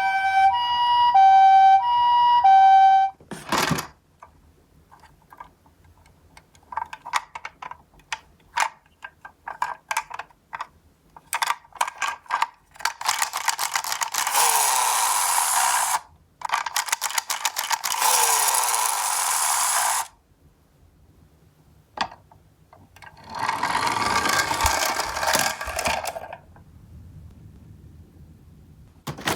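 A two-tone hi-lo ambulance siren, the Japanese "pee-po" pattern, alternating for about three seconds and then stopping with a clatter. Scattered clicks and knocks of small toy cars being handled follow. Three long rattling runs of die-cast minicars roll down a cardboard slope.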